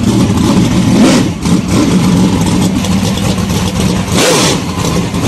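Loud race car engine running and revving, its pitch rising and falling about a second in and again near four seconds.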